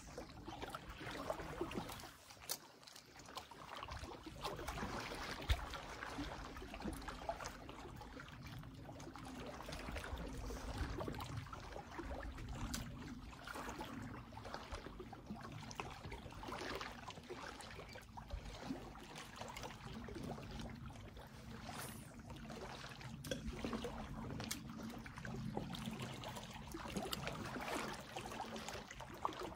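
Small waves lapping and trickling against the rocky shoreline, faint and steady, with scattered light clicks.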